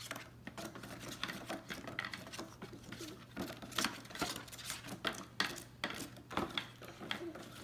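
A utensil stirring a thick mixture of glue, water and shaving cream in a bowl, with irregular scraping and clicking against the bowl about once or twice a second.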